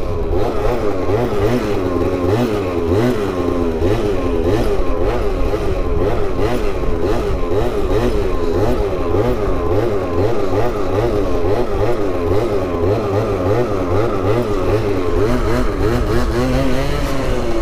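50cc two-stroke stunt scooter engine revving and easing off over and over as it is held through wheelie circles, its pitch rising and falling a few times a second. The rider hears a strange noise from the transmission that he cannot identify.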